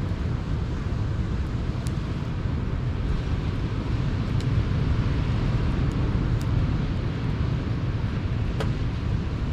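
Sea waves washing on the shore as a steady low surf noise that swells a little in the middle, with a campfire crackling: five or so sharp pops scattered through it.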